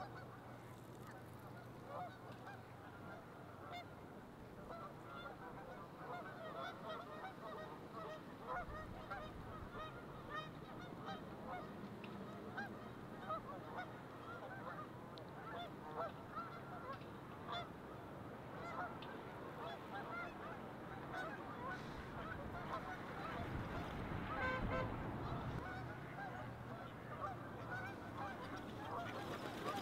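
A roosting flock of Canada geese honking, many faint calls overlapping in a steady chorus.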